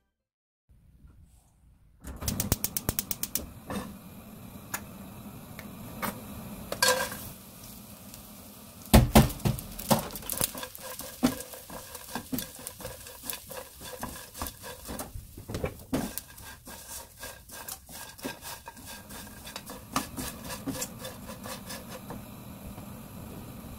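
Dried anchovies being dry-stir-fried in a nonstick wok, pushed around with a silicone spatula: irregular rattling, scraping and light sizzling. It starts after about two quiet seconds, with a louder clatter of the pan about nine seconds in.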